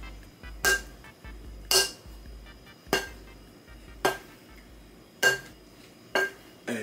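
Metal mixing bowl struck over and over, about once a second, each clang ringing briefly with the same bell-like tones.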